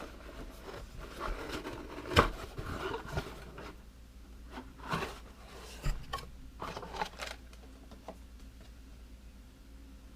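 A subscription box of fishing tackle being opened and its packaging handled: scattered rustling and scraping with sharp clicks, the loudest about two seconds in.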